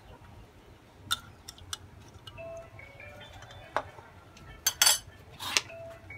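Metal spoon clinking and tapping against a metal baking tray, a few scattered sharp clinks with a louder cluster near the end.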